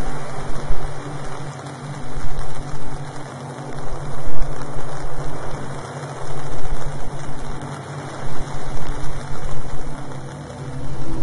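Ambient background track: a steady low hum under a loud hissing wash that swells and fades every couple of seconds.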